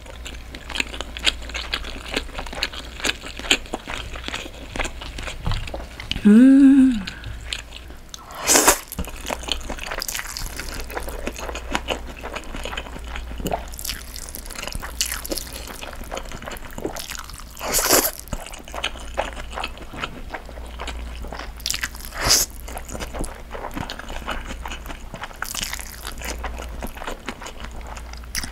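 Close-miked wet chewing and biting of spicy steamed monkfish with thin wheat noodles, a steady run of small mouth clicks. Louder slurps of noodles come about three times, at roughly 9, 18 and 22 seconds, and a brief hummed "mm" comes about six seconds in.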